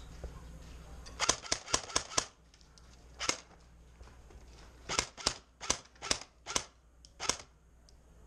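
Airsoft gun firing sharp single shots: a quick run of five, one more a second later, then six at about two or three a second.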